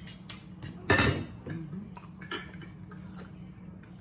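Metal forks and a steak knife clinking and scraping on ceramic dinner plates while eating, in scattered short clicks, with one louder knock about a second in. A steady low hum runs underneath.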